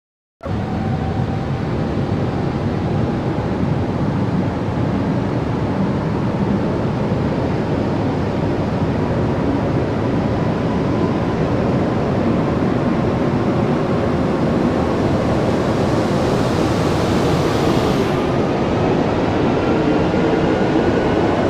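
Loud, steady rushing vehicle noise that starts abruptly, with a faint tone slowly rising in pitch throughout.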